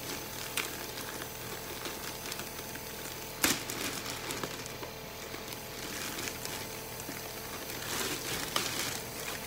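Plastic packaging crinkling and rustling as a robot vacuum is unwrapped, with a sharp snap about three and a half seconds in and a few smaller clicks near the end.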